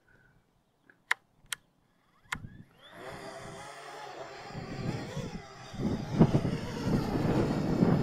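Three short sharp clicks, then a Parrot Bebop 2 quadcopter's motors spin up with a rising whine about two and a half seconds in. The drone takes off and its propeller whir grows steadily louder, with wind buffeting the microphone from about six seconds in.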